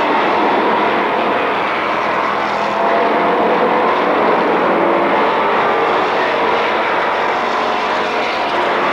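Stock cars racing around an asphalt oval, a pack of engines running hard at speed. Several engine notes overlap, their pitch rising and falling as cars pass.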